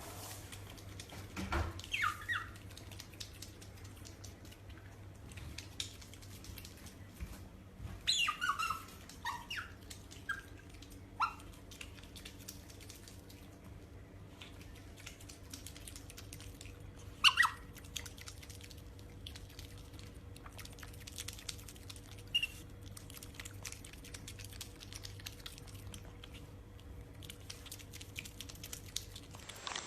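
A small animal's short, high squeaks or chirps, each falling in pitch, coming in scattered groups: a few about two seconds in, a cluster around eight to eleven seconds, and single ones near seventeen and twenty-two seconds. A steady low hum runs underneath.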